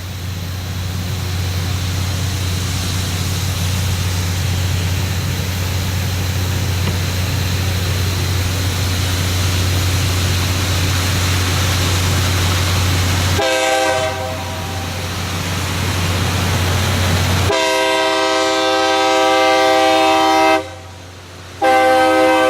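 LORAM rail grinder train running along the track, a steady noisy roar with a low hum rising in level. About 13 s in its horn gives a short blast, then a long blast, a break of about a second, and another blast near the end, as at a grade crossing.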